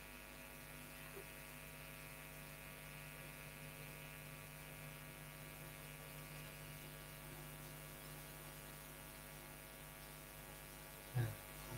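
Faint, steady electrical mains hum with its overtones, picked up in the audio of the call recording. A brief, louder low sound comes near the end.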